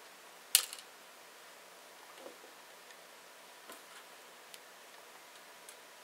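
A sharp click about half a second in, followed by a few scattered faint ticks and taps: small hard parts being handled on an RC crawler's axle.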